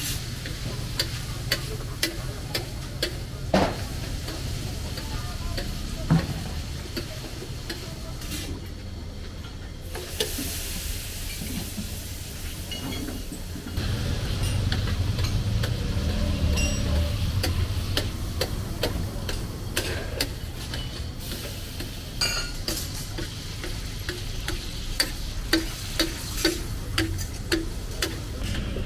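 Mutton liver (kaleji) sizzling as it fries on a tawa, with a metal spatula clinking and scraping against the griddle as it is stirred. Near the end the spatula taps the tawa in a steady run, about two strikes a second.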